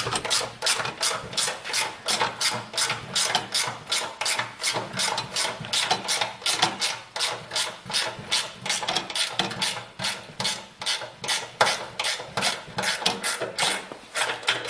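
Ratcheting wrench clicking steadily as it is swung back and forth to back out the bolts that join the two halves of a snowblower, about three or four clicking strokes a second.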